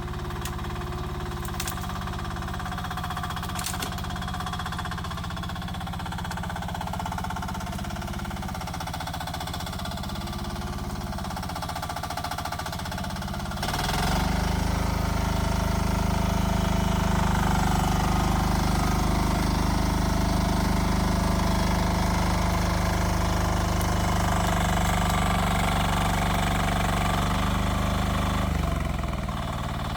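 Rippa R10 mini excavator engine running with a steady, knocking clatter. About halfway through it gets clearly louder and runs harder, then drops back shortly before the end.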